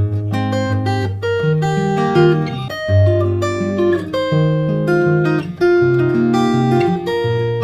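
Background music: guitar playing a melody with strummed chords.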